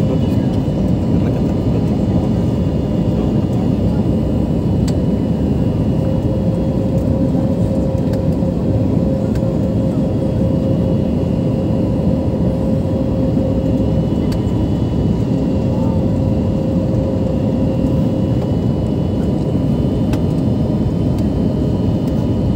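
Jet airliner cabin noise on the approach to land: a steady roar of engines and rushing air, with a faint steady hum running through it.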